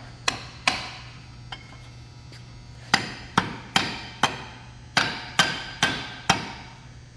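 Hammer blows on metal: two sharp strikes near the start, then a run of eight strikes about half a second apart, each with a short metallic ring.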